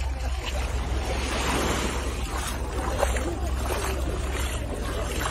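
Sea waves and wind noise over a steady low rumble.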